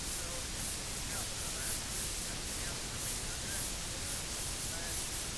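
Steady cassette tape hiss from the blank stretch of tape after the recorded program, with a few faint wavering tones barely showing through.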